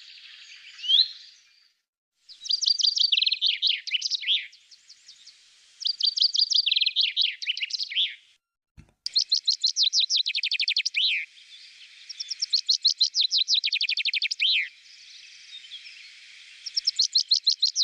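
Common chaffinch singing: repeated phrases of rapid trilled notes that fall in pitch from high to lower, about five phrases, some nearly running into each other. Two short upslurred notes come just before the first phrase.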